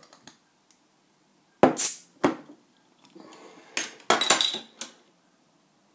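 Crown cap prised off a glass bottle of bottle-conditioned home-brew beer: a sharp metallic snap with a short hiss of escaping carbonation gas about a second and a half in, then a click and, a couple of seconds later, a run of metallic clinks and rattles.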